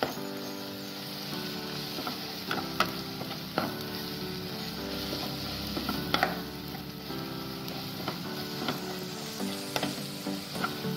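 Onion-tomato masala sizzling in oil in a nonstick pan while the spice powders roast in it, stirred with a spatula that scrapes and knocks against the pan now and then.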